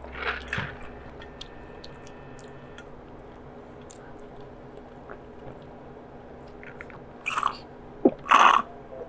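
Slushy iced ade sucked up through a straw: a few loud, short slurps starting about seven seconds in, with faint clicks of ice before them.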